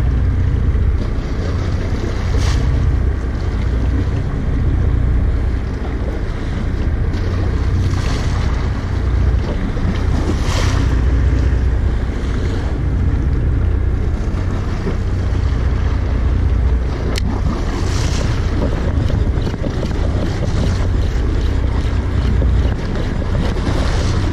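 Wind buffeting the microphone with a steady low rumble over the wash of open-sea waves, with a brief splash of water every few seconds.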